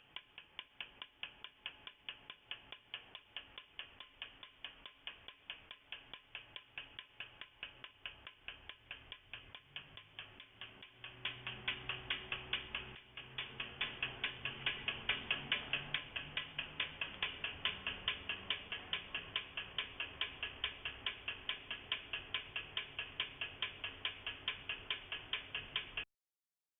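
Solenoid valves of a water-drop emitter clicking in a fast, even rhythm, about three clicks a second, as they open and close in step with the projector to release the drops. The clicking gets louder about eleven seconds in.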